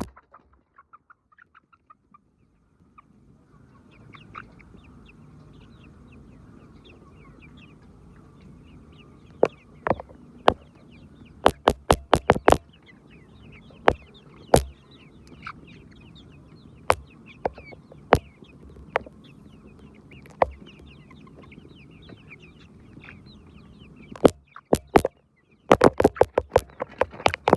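Chickens clucking and chirping, starting after a few seconds of near silence, with many sharp taps or clicks at irregular intervals.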